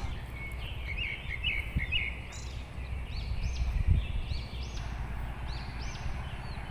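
Small birds calling in high, repeated arching chirps over a low steady rumble outdoors, with a couple of soft thumps.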